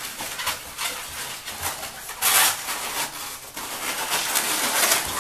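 Latex modelling balloons squeaking and rubbing against each other as a balloon flower is twisted onto a balloon stem. The loudest squeaky stretch comes about two seconds in.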